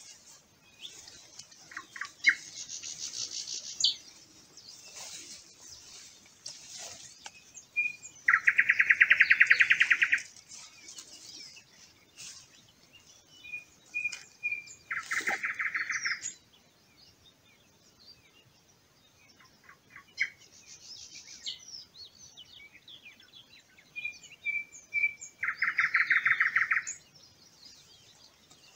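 Songbirds singing outdoors. The loudest sings three times, about seven to ten seconds apart, each song a few short notes running into a fast trill about two seconds long. Other birds chirp higher and fainter in between.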